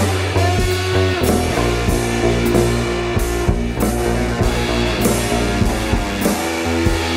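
Instrumental break in a rock song: guitar and bass guitar playing held notes over drum kit hits, with no vocals.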